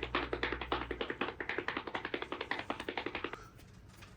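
A fast, even run of short taps, about eight a second, that stops about three and a half seconds in.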